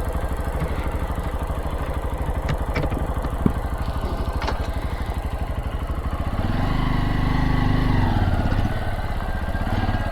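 Carbureted Honda motorcycle engine running with an even firing rhythm, a few sharp clicks in the first half. It gets louder for a couple of seconds past the middle, then settles back.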